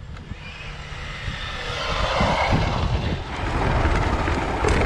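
Vehicle engine sound effect, a rushing noise over a low rumble that grows steadily louder, as of a racing car coming closer.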